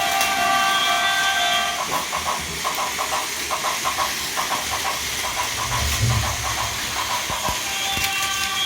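Plarail toy train layout sound effects: an electronic Tokaido Line train horn sounds for about two seconds, then a level-crossing bell dings in quick repeated pairs. The horn sounds again near the end. A steady whirring hiss of the battery-powered toy trains running on plastic track lies beneath throughout.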